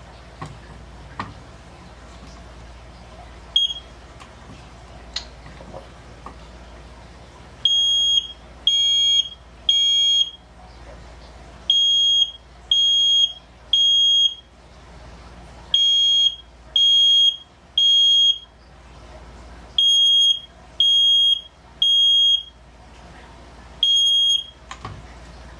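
Household smoke alarm being tested, sounding a loud, high-pitched beep in the temporal-three evacuation pattern: three beeps, a pause, repeated four times, then one last beep before it stops. A few clicks and one short beep come before the pattern starts.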